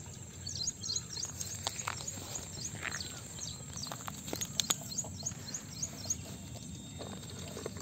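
Small birds chirping over and over in short, high chirps, with a few faint clicks and rustles close by.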